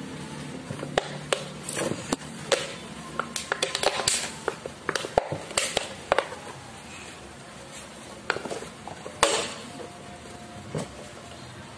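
Cardboard and an empty plastic bottle being handled: irregular knocks, taps and crinkling scrapes, with the loudest crackle about nine seconds in.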